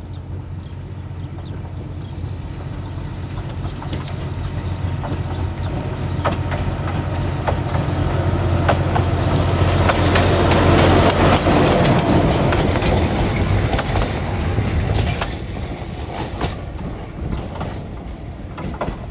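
MÁV Mk48 diesel-hydraulic narrow-gauge locomotive passing with one carriage. Its steady engine drone grows louder as it approaches, peaks about halfway through, then fades. The wheels clatter over the rail joints, most clearly as the carriage goes by in the second half.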